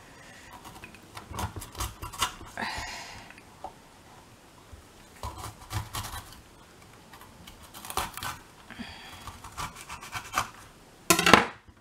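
Chef's knife cutting a red bell pepper on a hard cutting board, cutting out the stem and seed core: short clusters of sharp knocks as the blade meets the board, with rustling scrapes between them and the loudest knocks near the end.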